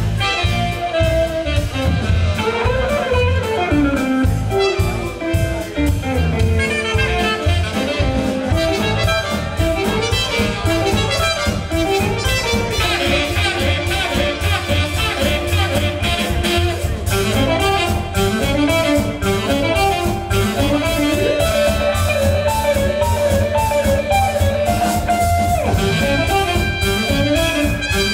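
Live band playing an up-tempo tune: drums and bass keeping a steady driving beat under electric guitar and melody instruments whose lines slide up and down in pitch.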